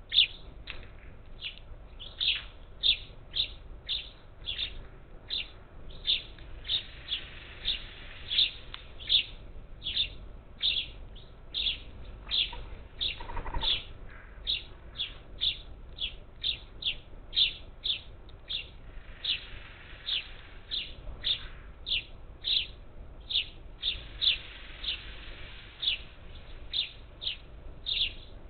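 Parakeets calling at a feeder: a steady run of short, high, repeated calls, about one to two a second.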